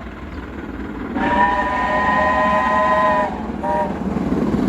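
Train horn sounding one long blast of about two seconds, then a short blast, over the rumble of a passing train that grows louder near the end.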